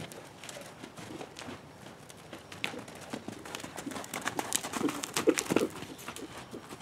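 Hoofbeats of a colt loping in a sand round pen: irregular, soft strikes of hooves on loose dirt, with a few louder ones about five seconds in.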